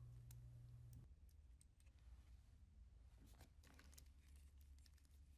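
Near silence with a few faint clicks of small screws and washers being fitted to a metal bracket. A low hum stops about a second in.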